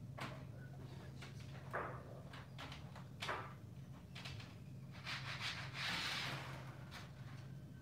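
HO scale model passenger train running on the layout: a faint steady low hum with scattered clicks and rubbing sounds, and a short rustle about five seconds in.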